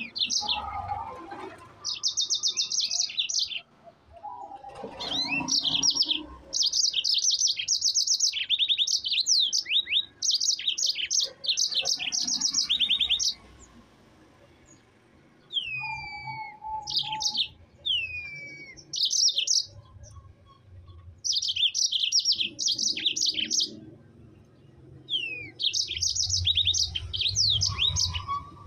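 Yellow-fronted canary singing vigorously in long, fast rolling trills, phrase after phrase with short breaks. About halfway through it goes quiet for a couple of seconds, then gives a few downward-sliding whistled notes before the trills resume.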